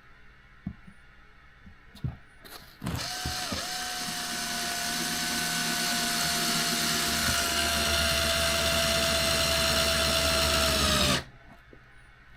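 Electric screwdriver running for about eight seconds, driving a small screw into an RC car's chassis. It gives a steady whine that drops slightly in pitch near the end and cuts off suddenly. A few light clicks come before it starts.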